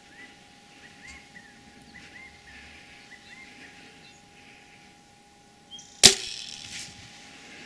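Bow shot at a turkey: the bowstring is released once with a sharp, loud snap about six seconds in, followed by a brief ring. Before it, faint short chirping calls.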